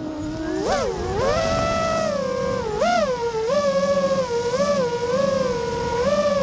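FPV freestyle quadcopter's brushless motors whining, the pitch dropping low at the start and then swooping up and back in short throttle punches about once a second.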